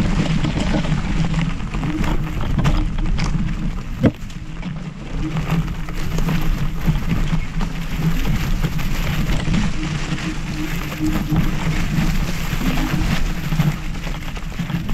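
Ride noise from an electric scooter under way: steady, crackly wind buffeting on the microphone over rumble from the wheels on the path, with a sharp knock about four seconds in.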